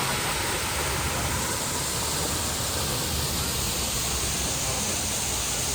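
Waterfall running steadily: an even, unbroken rush of falling water.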